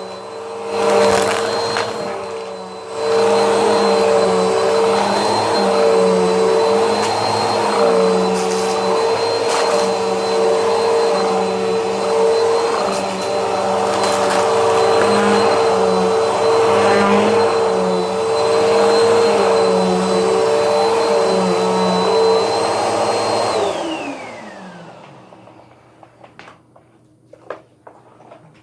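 Vacuum cleaner motor running steadily with a high whine, then switched off near the end and winding down with a falling pitch, followed by a few light clicks.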